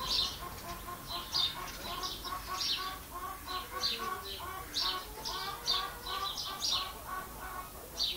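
Hens clucking with small birds chirping, a quick run of short repeated calls, several a second, without a break.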